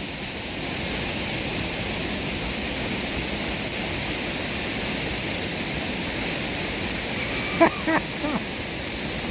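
Steady rushing of a very big waterfall. A brief voice cuts in for under a second near the end.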